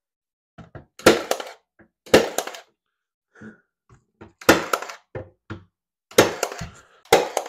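23-gauge pneumatic pin nailer firing pin nails into a wooden toe kick: a string of sharp snaps at irregular intervals, five loud ones and several lighter ones in between.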